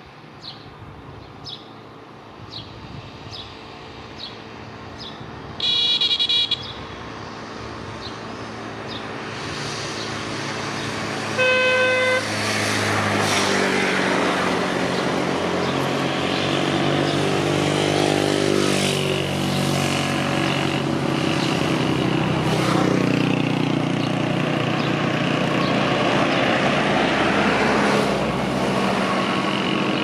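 A bird chirps repeatedly for the first several seconds. A road vehicle's horn toots twice, about six seconds apart. Then a vehicle engine runs loudly, its pitch rising and falling, for the rest of the time.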